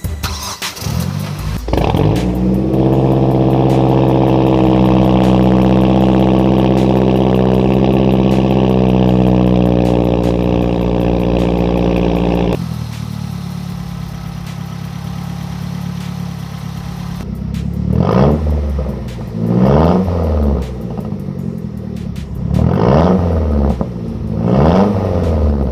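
2008 Mazdaspeed 3's turbocharged 2.3-litre four-cylinder running with a steady, even drone, then revved four times in quick succession, each rev rising and falling, in the last third.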